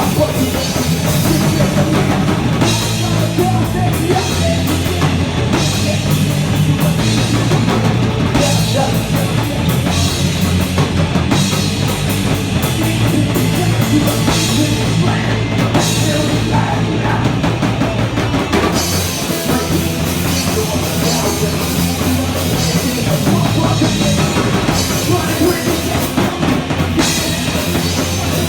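Rock band playing loud, driving rock music live, with a pounding drum kit.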